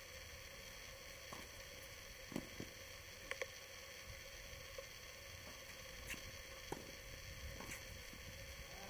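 Faint, sharp pops of tennis balls struck by rackets and bouncing during a doubles rally, several at irregular moments, with a close pair a little past three seconds in. Under them a steady low hiss and hum.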